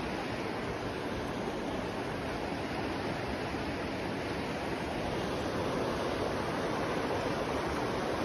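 River water rushing over rocks in a fast, shallow stretch: a steady, even rushing noise.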